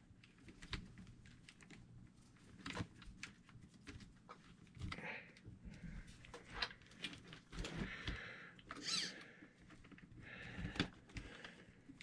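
Scattered small clicks and taps from hand work on a Traxxas E-Maxx RC truck's axle and suspension parts, with a few soft rustles in between.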